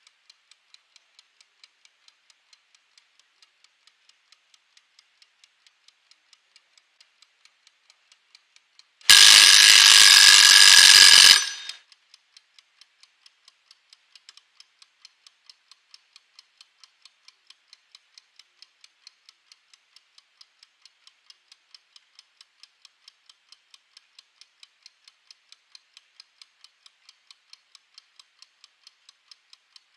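Mechanical wind-up kitchen timer ticking steadily, about four ticks a second. About nine seconds in, its bell rings loudly for about two seconds as it reaches zero, and then the ticking carries on.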